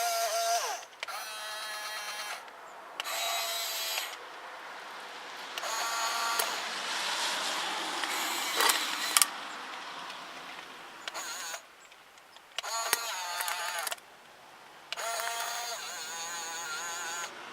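Small electric motors of a HuiNa 1550 RC metal excavator whining in bursts, each starting and stopping after one to three seconds as different functions are worked, with a few sharp clicks.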